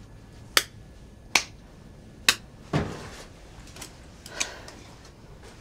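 Three sharp clicks about a second apart, followed by a duller knock and a couple of fainter ticks.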